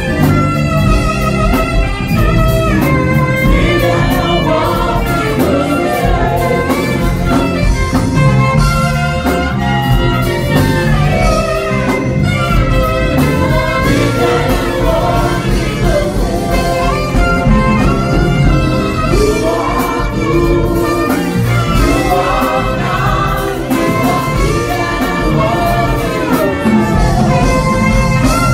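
Two saxophones playing a gospel-jazz melody together over amplified backing music with a steady beat.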